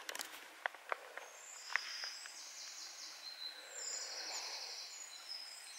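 Quiet woodland ambience with faint high-pitched chirping through most of it and a few light clicks in the first couple of seconds.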